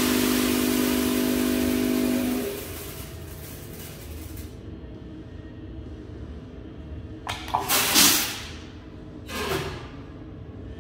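Automatic coffee weighing and filling machine dispensing roasted coffee beans: a loud steady hum with beans pouring for about two and a half seconds, then a fainter trickle that stops about four and a half seconds in as the 250 g target weight is reached. Later come two short, loud rushing noises, the first, about eight seconds in, being the loudest.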